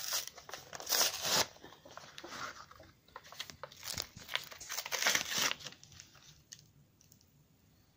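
Paper and plastic packaging of a Pokémon card pack being torn and crinkled by hand, in irregular rustling bursts that die down after about six seconds.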